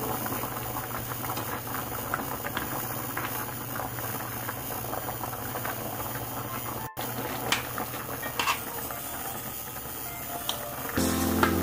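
Water with radish and seaweed at a rolling boil in a stainless pan: a steady bubbling and crackling, with a few light taps around the middle. The sound cuts out for an instant about seven seconds in, and background music returns near the end.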